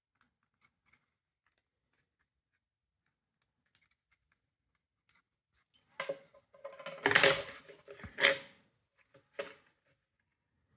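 Small hard parts of a smoke detector being handled during disassembly: a burst of clicks, scrapes and rattles about six seconds in, after near silence, then one more click near the end.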